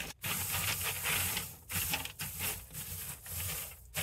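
Dry coconut husk chips rustling and crackling as they are poured from a crinkling plastic bag onto a mesh screen and spread by hand. The sound comes and goes in uneven stretches with short pauses.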